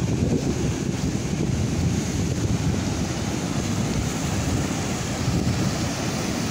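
Wind buffeting the microphone as a steady low rumble, over the wash of sea waves breaking on the shore.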